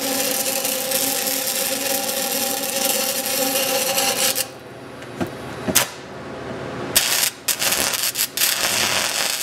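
Stick-welding arc on an open-root pipe weld, a steady crackling sizzle with a hum under it, which stops abruptly about four and a half seconds in as the rod is broken off. After that come separate knocks and short scraping sounds of metal being worked.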